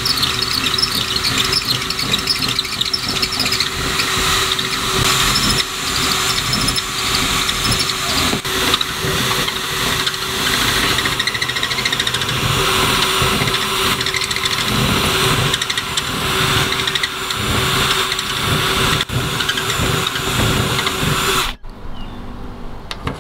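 Cordless drill running continuously as it bores a larger hole up through the eave soffit board, with a steady motor whine. It stops abruptly near the end.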